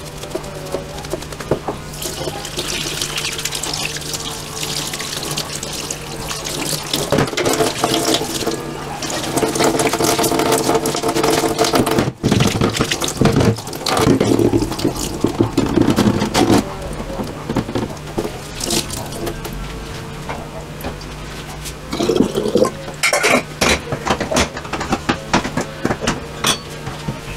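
Tap water running and splashing into a stainless steel sink as a glass bottle is rinsed and filled by hand, louder in the middle stretch. Near the end, a run of short knocks and splashes from handling the glass in the sink.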